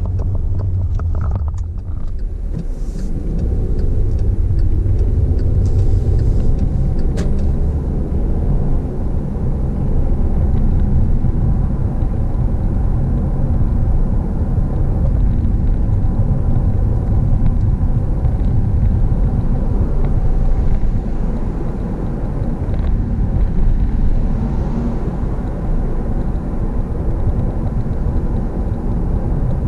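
Car driving, heard from inside the cabin: a steady low rumble of engine and tyre noise, dipping briefly about two seconds in.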